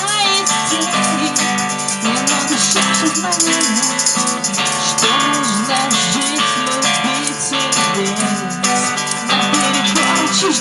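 Live acoustic rock band playing an instrumental passage: strummed acoustic guitar with a rattle keeping a steady beat and a melody line gliding over the chords.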